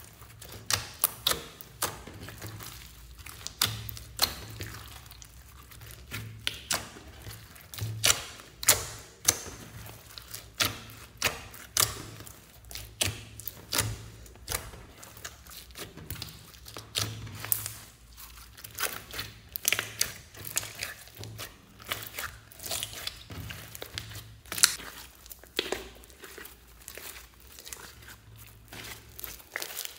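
Hands squeezing, pressing and stretching a large mass of mixed slime studded with foam beads, giving irregular wet pops, clicks and crackles several times a second.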